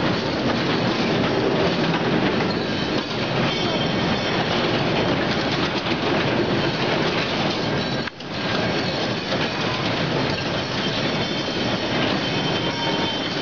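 Kiddie Jeep ride running: a steady rumbling clatter of the little cars rolling round their track, with a faint high squeal above it.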